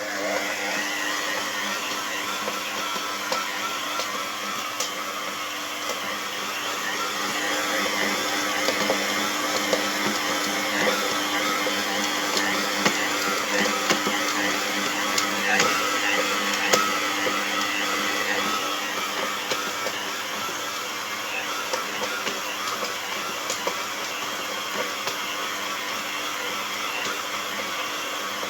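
Cuk by Gadnic B3050 planetary stand mixer running with its dough hook kneading bread dough: a steady motor whine with irregular knocks and clacks, most frequent in the middle stretch. The head shakes as it kneads; the owner reports this noise on speeds 1 to 3 of a nearly new mixer and does not know the cause.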